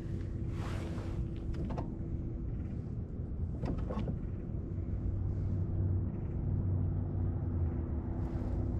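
A steady low hum runs throughout, with a few light knocks and swishes about a second, two seconds and four seconds in.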